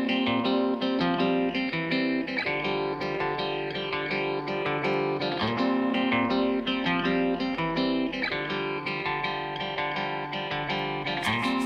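Intro music led by guitar, with sustained plucked-string notes and a steady chord progression.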